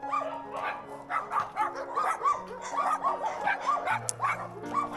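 Dogs barking and yipping in quick succession over background music with held notes.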